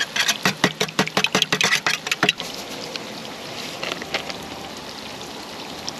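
Two raw eggs beaten with chopsticks in a stainless steel camping cup: a quick run of clinking strokes, about seven a second, for roughly two seconds. Then a steady sizzle of pork belly frying on a griddle.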